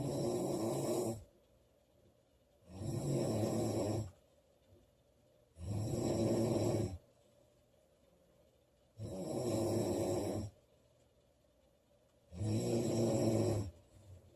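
A woman snoring loudly: five snores at an even pace, one about every three seconds, each lasting a little over a second, with quiet between them.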